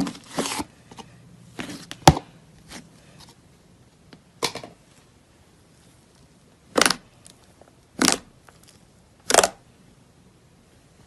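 Thick pale pink slime being pressed and squeezed by hand, making short squishing sounds. There are a few at first, then three louder ones about a second and a quarter apart in the second half.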